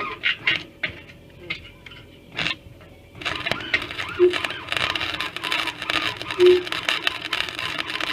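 Flux-core wire welder arc crackling steadily as it lays a weld, starting about three seconds in, after a few scattered clicks.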